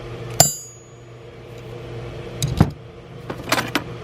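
Metal hand tools clinking and clattering as they are handled: one sharp, ringing metal clink about half a second in, then a couple of duller knocks and a quick run of small clicks near the end, over a steady low hum.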